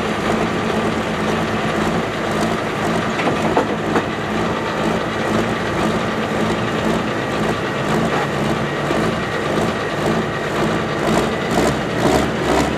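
Farm tractor's diesel engine running loudly at a tractor pull, a steady low drone under a broad mechanical noise.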